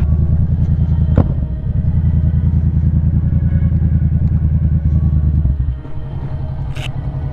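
Yamaha MT-07 parallel-twin engine running at low speed as the motorcycle rolls slowly to a stop, with a short click about a second in. About six seconds in, the engine note drops lower and quieter, as at idle.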